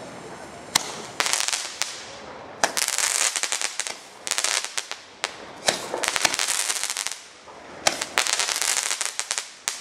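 Fireworks going off: two sharp cracks, then four bursts of hissing, crackling sparks thick with sharp pops, each lasting about a second with short gaps between.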